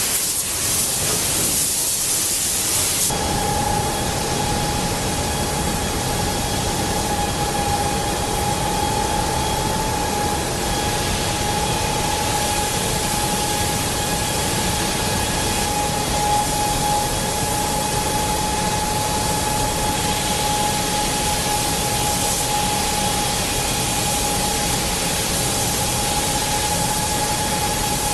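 Robotic car-body paint booth: a steady hiss of spray and rushing air. About three seconds in the sound changes abruptly and a steady high machine whine joins the hiss.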